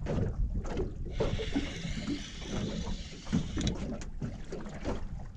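Water splashing and lapping around a small boat, with wind rumbling on the microphone and a few light knocks.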